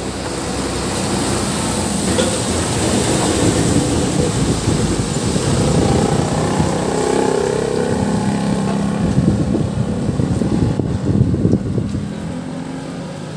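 A motor vehicle going by on the road: engine and road noise builds over the first few seconds, holds, and eases off near the end.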